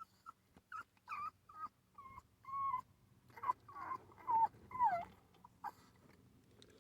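Puppy whimpering: about ten short, high whines in a row, the last few the loudest and one of them falling in pitch.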